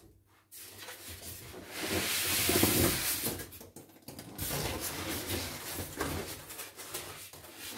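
Styrofoam packing blocks scraping and rubbing against cardboard and each other as they are lifted out of a shipping box. There is a loud, scratchy rustle about two seconds in, then fainter rubbing and light knocks.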